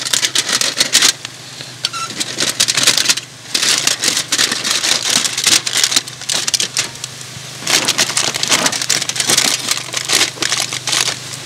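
Aluminium foil crinkling and tearing as a foil pack of fries on a barbecue grill is cut and pulled open with a knife, in irregular crackly bursts with a quieter stretch about one to three seconds in.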